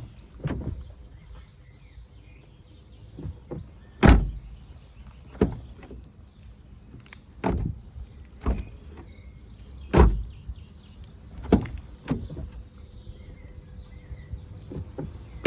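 Creaking from a Peugeot 308 SW: a dozen or so short, sharp creaks and knocks at irregular intervals, the loudest about four and ten seconds in. It is the creaking noise whose cause the owner is trying to find.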